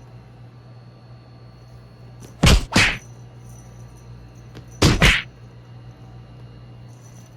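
Dubbed cartoon whack sound effects: two quick hits in a row about two and a half seconds in, and another pair about five seconds in, each far louder than the faint hum underneath.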